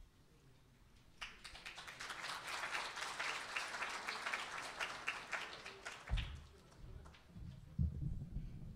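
Audience applauding for about five seconds, then dying away. After that come a few low thumps and bumps as the microphone stand is handled and adjusted.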